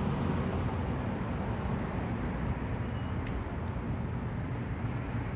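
Steady low background rumble with a few faint ticks, no speech.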